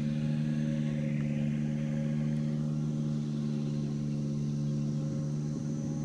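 A motor running steadily with a constant low hum that holds several fixed tones and does not change.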